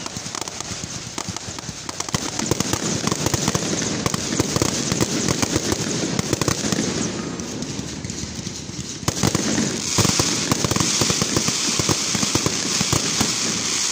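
Aerial fireworks going off: a dense, continuous run of crackling pops and bangs, with one sharper bang about nine seconds in and a louder hissing crackle after it.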